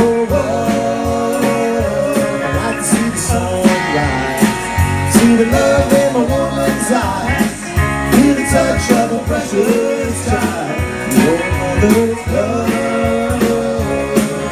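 Live country-rock band playing an instrumental passage, electric guitars over a steady drum beat.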